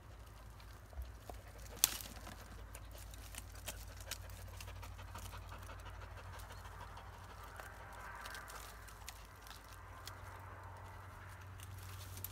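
Kars shepherd dog panting hard as it works at a tree stump, with scattered sharp clicks and one louder snap about two seconds in.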